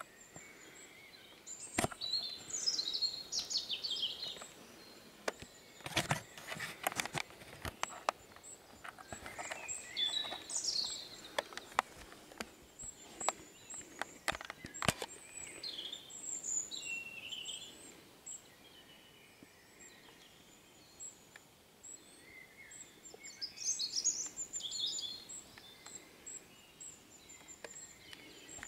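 Songbirds singing short, falling, warbling phrases every few seconds over a faint outdoor hiss, with scattered sharp clicks and taps.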